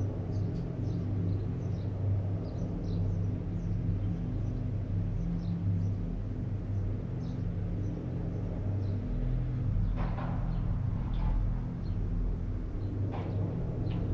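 A steady low rumble with short high bird chirps scattered over it, and a few soft knocks about two-thirds of the way through and near the end.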